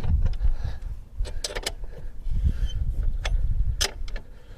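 Wrenches on a motorcycle's rear axle nut, working it loose: a few sharp metal clicks and clinks, several close together, with low handling rumble.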